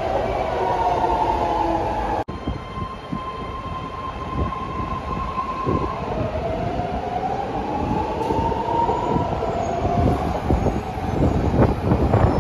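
BART trains' electric traction motors whining, with the pitch gliding as a train pulls along the platform. About six seconds in comes a whine that rises in pitch as a train accelerates away. Near the end, the rumble and clatter of steel wheels on rail grows as another train approaches.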